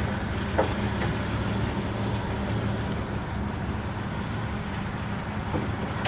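1966 Ford Mustang's 200 cubic-inch straight-six idling steadily, a low even hum.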